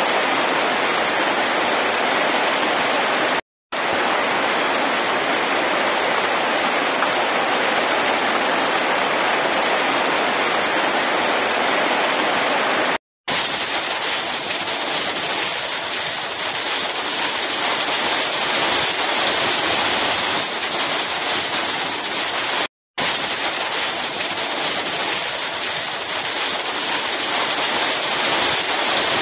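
Heavy rain pouring steadily onto pavement and leaves, a dense even hiss. The sound cuts out for a split second three times.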